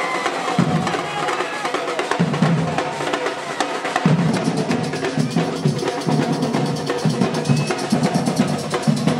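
Batucada percussion ensemble playing a samba-style rhythm: deep surdo bass drum beats pulsing under dense, rapid snare and hand-percussion strokes.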